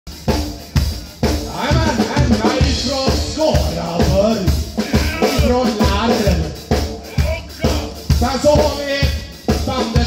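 Live rock'n'roll band playing: a drum kit keeps a steady beat on bass drum and snare under electric guitar, bass and keyboard.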